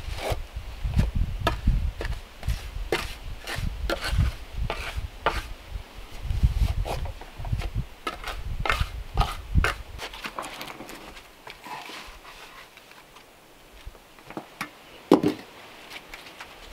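Steel trowel scraping and tapping wet mortar between cordwood log rounds: a run of short scrapes and knocks. A single wooden knock near the end as a log round is set into the mortar.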